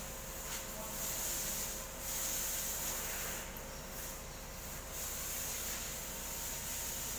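Cloth rag rubbing and wiping over engine parts in a few short spells, over a steady hiss and a faint steady hum.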